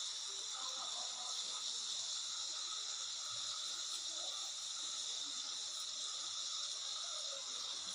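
Steady hiss of a wok sizzling on the stove, holding an even level throughout.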